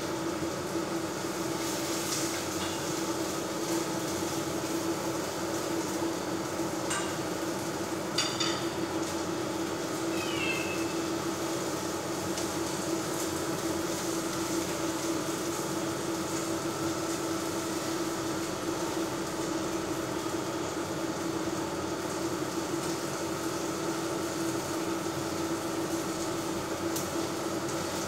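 Steady hum with a broad hiss from an induction hob heating a pan of frying shrimp and fish. A couple of light clicks come about seven and eight seconds in, and a brief high chirp about ten seconds in.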